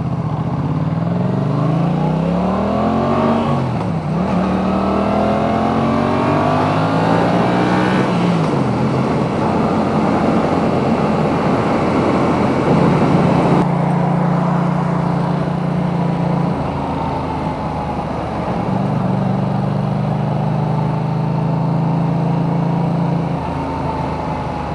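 Yamaha MT-07 motorcycle engine accelerating hard, heard from inside a full-face helmet over steady wind and road noise. The engine revs up and drops back at two upshifts, about four and eight seconds in. Later it settles to a steady cruising note.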